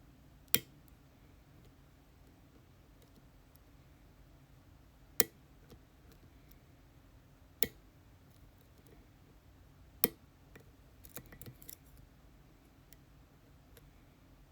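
Sharp metallic clicks from an ASSA Twin Exclusive lock being worked with lock picks: four single clicks a few seconds apart, then a quick flurry of lighter ticks near the end.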